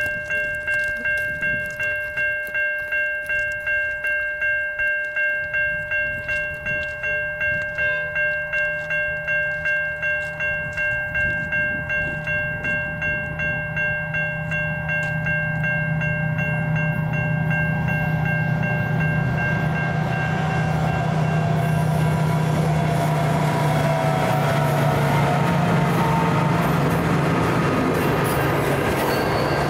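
A Safetran Type 3 E-bell at a railway level crossing rings with steady, evenly spaced strikes. From about halfway through, a freight train's rumble grows louder and then runs steadily as the train passes over the crossing, drowning out the bell.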